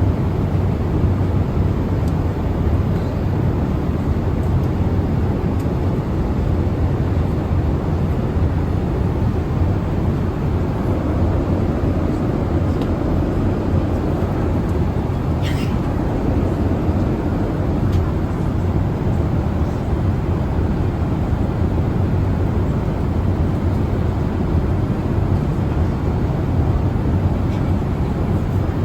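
Steady cabin noise of a Boeing 787-8 Dreamliner in flight: an even, deep rush of airflow and engine noise.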